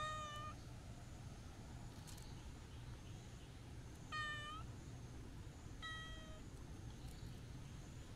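A black cat meows three times while being petted on its back: once right at the start, again about four seconds in and again about six seconds in. Each meow is short, about half a second.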